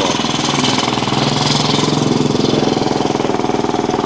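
Motorcycle engine running steadily, a rapid even beat of exhaust pulses.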